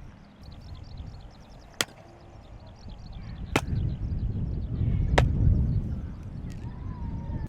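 Three sharp knocks, about a second and a half apart, over a low rumble that swells in the middle and fades again.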